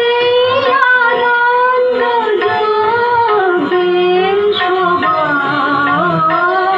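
Indian classical-style dance music: a melody of long held notes that glide and bend in pitch.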